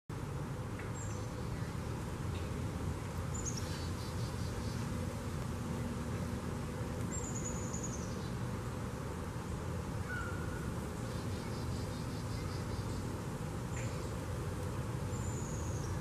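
Outdoor evening ambience: insects trilling in fast pulses, and high chirps that fall in pitch, repeated about five times, over a steady low rumble.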